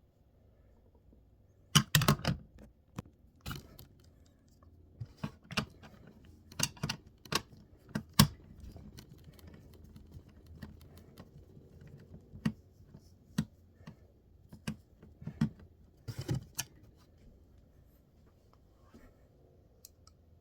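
Irregular sharp clicks and taps of a screwdriver and small screws against a laptop's case as its Torx screws are worked out, with a few louder knocks.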